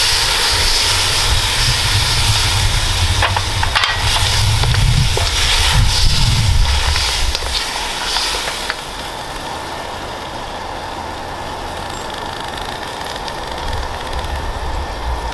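Coconut milk poured into a hot wok, sizzling and steaming over a low rumble, with a few light knocks. After about nine seconds it drops to a quieter steady hiss as the sauce settles to a simmer.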